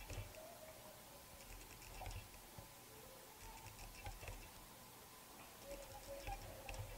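Faint light rubbing, with scattered small taps and clicks, of a cloth and fingers over a camera's rear screen protector as it is smoothed down to press out air bubbles.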